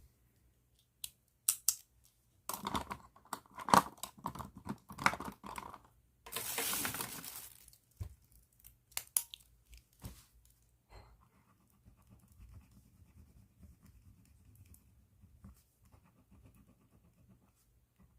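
Thin plastic bag crinkling and rustling as it is handled, with a few sharp clicks, then faint scratching of a pen writing on paper.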